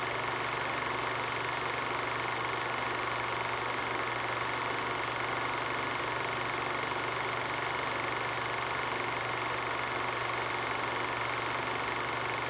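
A 16mm film projector running steadily, its mechanism making an even, unchanging mechanical sound.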